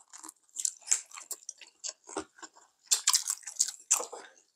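Crunching and chewing of deep-fried crab: a run of irregular crisp crunches with short pauses between them, the loudest about a second in and again near three and four seconds.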